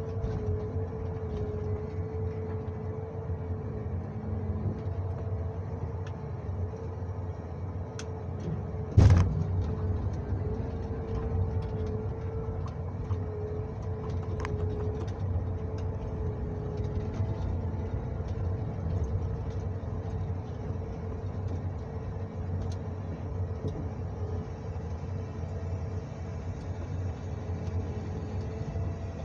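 John Deere 1910G forwarder running, heard from inside its cab: a steady low engine drone with a whine on top that rises and falls a little. One heavy thump about nine seconds in is the loudest sound.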